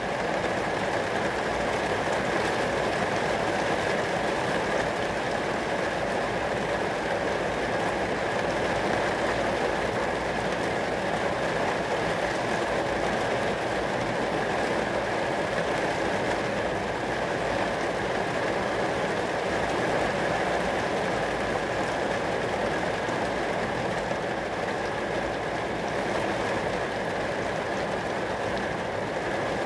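Rain falling steadily on glass, an unbroken wash of drops.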